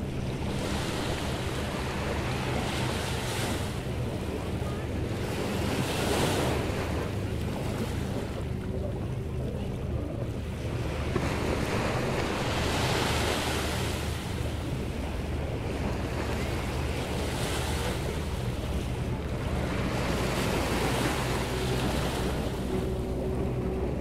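Atlantic surf on a sand-and-pebble beach: waves breaking and washing up the shore, swelling and easing every few seconds.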